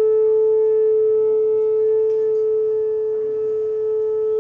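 A steady, loud, pure mid-pitched electronic tone, like a test-tone beep, held at an even level and cutting off suddenly right at the end.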